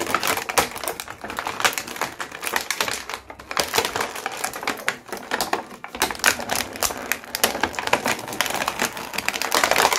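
Toy packaging being torn open by hand: a dense, continuous run of crinkles, crackles and clicks.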